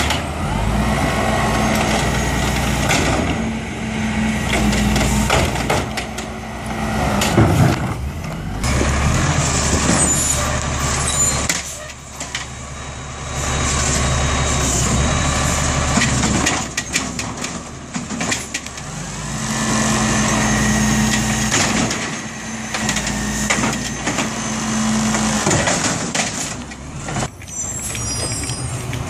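Amrep automated side-loader garbage truck working a curbside pickup: the engine revs up to power the hydraulic arm in long spells, with sharp air-brake hisses and squeals as the truck stops and pulls away.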